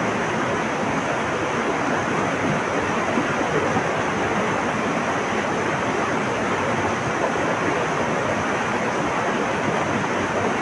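Flowing water rushing steadily and evenly, with no break or change.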